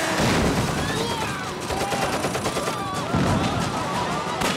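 Heavy gunfire from rifles and pistols: many shots in quick, overlapping succession, like a volley.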